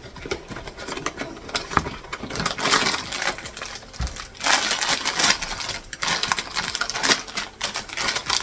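Blind-box packaging being opened by hand: irregular rustling and clicking handling noises, with two louder spells of rustling in the middle.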